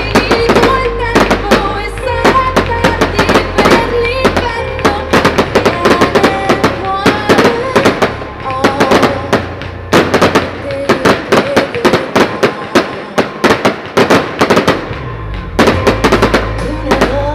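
A fireworks display: a rapid, continuous run of bangs and crackles from aerial bursts, several a second, with music playing underneath.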